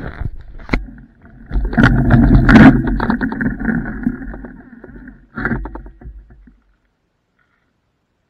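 Scooter rolling over gravel, with tyre crunch, rattling and knocks and a steady high whine through the middle, then stopping about six and a half seconds in.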